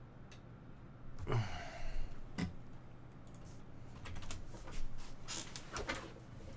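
Scattered clicking and tapping, like typing on a computer keyboard, with a short falling sound from a voice about a second in.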